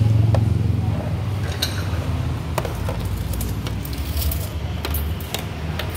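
Metal ladle scooping bakso meatballs in a pot of broth, clinking against the pot about eight times at uneven intervals over a steady low hum.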